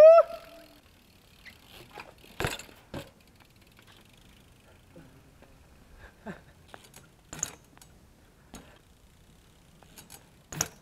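A short rising yell at the start, then scattered sharp clicks and knocks from a BMX bike on the concrete as a rider rolls, sets up and spins the bike through a trick.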